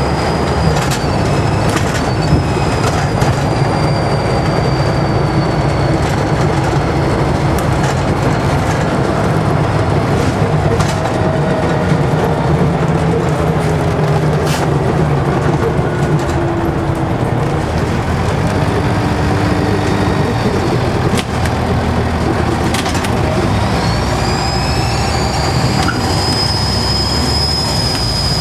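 Scania N94UD double-decker bus under way, heard on board: the diesel engine drones under body rattle while the turbocharger whistles in a high thin tone. The whistle sinks slowly in pitch over the first several seconds and fades, then rises again near the end and holds as the engine pulls.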